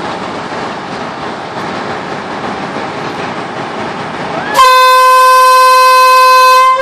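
State Railway of Thailand diesel railcar with a steady engine rumble, then about four and a half seconds in its horn gives one loud, steady blast of about two seconds that cuts off sharply.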